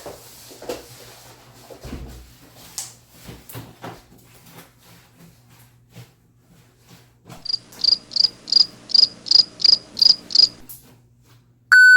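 Cricket chirping, a high chirp about three times a second for some three seconds, after a stretch of faint scattered clicks and knocks. Near the end a loud, flat electronic beep starts.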